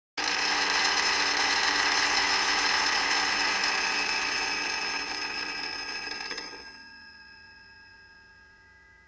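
Electric blender motor running at speed, mixing its contents, then switched off about six and a half seconds in and spinning down with a fading whine.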